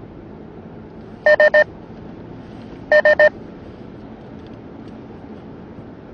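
An electronic warning beeper inside a moving car sounds two groups of three short, high beeps, the first about a second in and the second about three seconds in. Steady engine and road noise runs underneath in the cabin.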